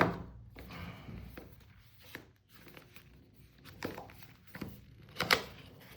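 Cardboard packaging being handled and opened: a sharp knock at the start and another about five seconds in, with light taps and rustling between.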